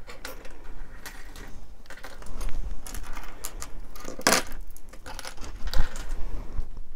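Metal costume-jewelry earrings jingling and clicking as they are handled, with one louder brief rustle about four seconds in.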